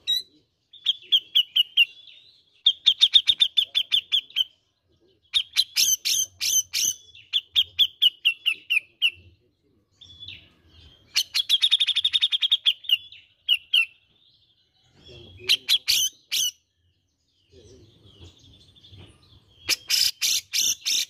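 Grey-cheeked bulbul (cucak jenggot) singing: fast runs of repeated chattering notes in phrases of one to four seconds, with short pauses between them.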